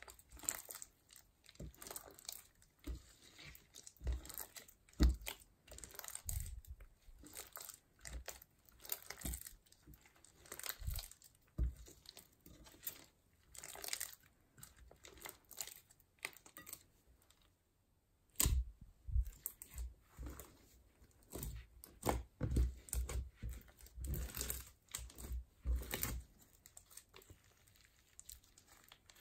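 Sticky glitter slime squished, kneaded and pulled by hand, giving a string of irregular wet crackles, pops and squelches. There is a short pause about two-thirds of the way through, and the crackling is denser after it.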